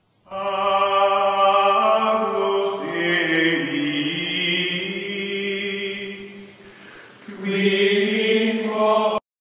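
Choir-like music of held, chanted chords that shift pitch a few times. It fades low about two-thirds of the way through, swells back up, then cuts off abruptly near the end.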